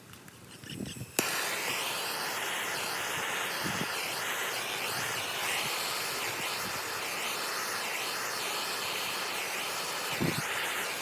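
Handheld torch lit with a sharp click about a second in, then its flame hissing steadily as it heats solder-seal heat-shrink connectors on crimped wiring.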